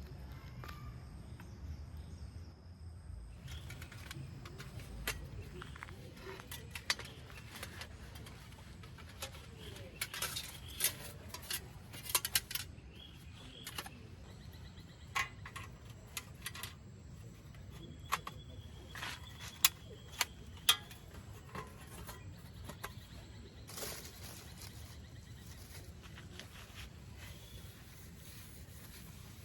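Irregular clicks and light metallic clinks of small objects being handled, loudest around ten to twelve seconds in and again around twenty seconds, over a steady low background.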